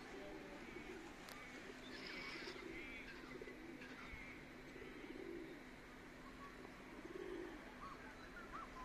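A dove cooing in low, soft calls that repeat every second or two, with faint chirps from small birds.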